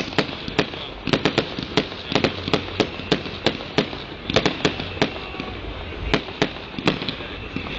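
Fireworks display: aerial shells bursting in a rapid, irregular series of sharp bangs and cracks, about three a second.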